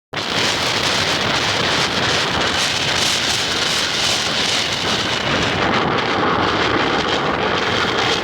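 Strong wind blowing across the microphone: a loud, steady rushing noise that starts abruptly at the beginning.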